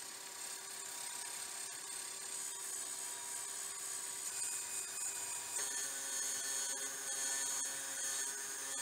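Wood lathe, a Nova Galaxi DVR, running with its motor whining steadily while a cloth is held against the inside of the spinning burl bowl, giving a steady rubbing hiss. About five and a half seconds in the motor tone shifts and the hiss gets louder.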